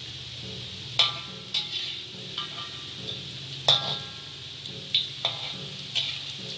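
Epok-epok (curry puffs) deep-frying in hot oil in a wok, a steady sizzle, with a metal slotted spatula clinking against the wok about seven times as the pastries are turned; the loudest clinks come about a second in and near the middle.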